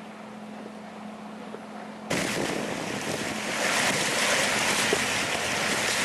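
Bow wave of an FPB 64 motor yacht under way, water rushing and splashing loudly along its aluminium hull. It starts abruptly about two seconds in, after a quieter stretch with a low steady hum.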